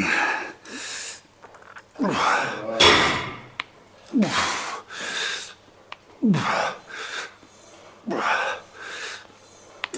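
A man's forceful exhales and grunts with each rep of cable crossover flies, about one every two seconds, each grunt falling in pitch.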